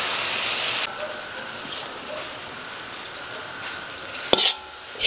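Grated coconut and palm-sugar filling sizzling in a wok as a spatula stirs it, cutting off suddenly about a second in. After that it is quieter, with a sharp knock and a short scrape of the spatula against the wok near the end as the filling is scraped into a bowl.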